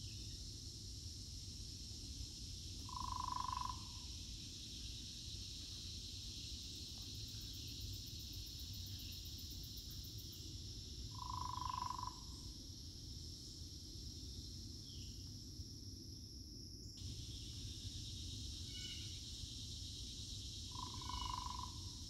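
A frog gives a short call three times, about nine seconds apart, over a steady high-pitched chorus of insects. The insect chorus changes abruptly about two-thirds of the way through.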